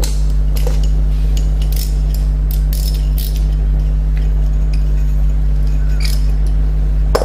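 Brake pads and metal caliper parts being handled at a motorcycle's rear brake caliper: scattered light metallic clicks and clinks, a few in quick succession around the middle, over a steady low hum.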